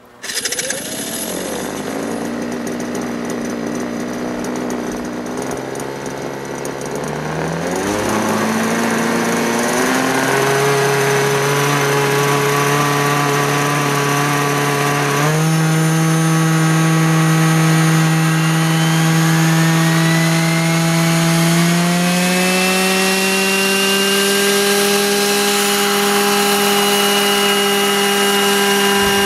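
Vario scale RC model of a Dolphin helicopter starting up: its engine catches suddenly and idles, then runs faster in several steps as the main and fenestron tail rotors spin up. Near the end it holds a steady higher pitch as the model lifts into a hover.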